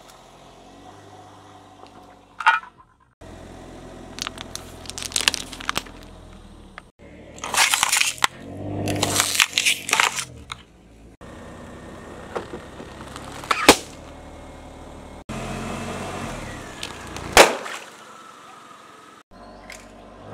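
A car tyre rolling over and crushing a run of objects in short separate takes: a sharp bang about two and a half seconds in, then crackling, a long loud crunching and squeaking of polystyrene foam around eight to ten seconds, and two more sharp cracks later on.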